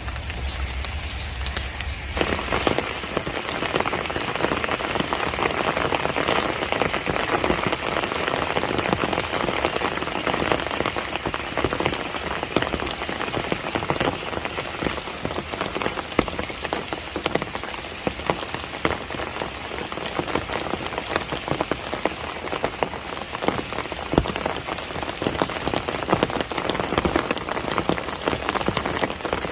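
Steady heavy monsoon rain falling on surfaces, a dense patter of many drops. About two seconds in, it becomes fuller and denser.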